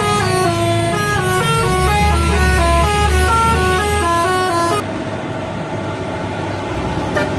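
Bus telolet horn playing a quick stepped tune of several tones sounding together, cutting off abruptly a little under five seconds in. A lower, quieter steady vehicle engine noise follows.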